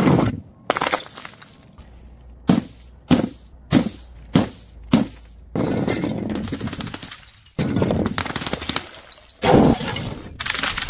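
Glass bottle being crushed: a handful of sharp cracks about half a second apart, then long stretches of crunching, grinding broken glass, with louder crashes near the end.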